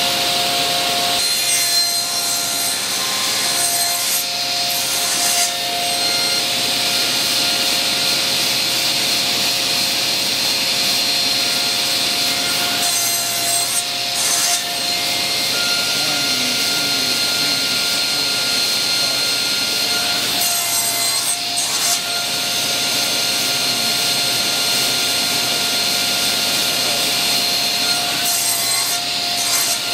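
A table saw runs with a steady whine, its blade cutting grooves in a small wood block clamped in a crosscut sled. The cut gets louder and harsher in short stretches as the block is pushed through the blade, about five times.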